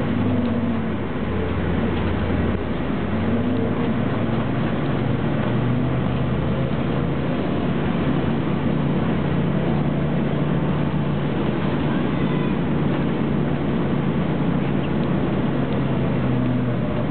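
City bus engine and road noise heard from inside the cabin while driving slowly: a steady drone whose pitch steps up slightly about a third of the way in.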